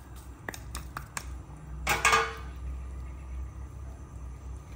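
Kitchen utensils clattering: a few light clicks, then a louder knock and clatter about two seconds in, as chopsticks and a small plastic container are handled against a steel pot, over a low steady hum.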